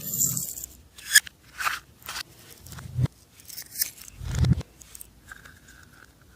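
Slime being mixed, giving an irregular string of sticky clicks and pops, a few of them with a dull low thud, that thin out after about five seconds.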